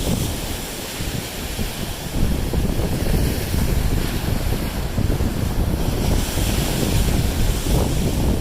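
Lake waves breaking and washing up on a sandy shore, under heavy wind buffeting the microphone; the wind eases slightly about a second in, then gusts up again just after two seconds.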